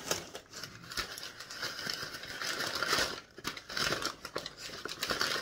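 Brown kraft packing paper being crumpled and rustled by hand, an irregular crackling that pauses briefly about three seconds in.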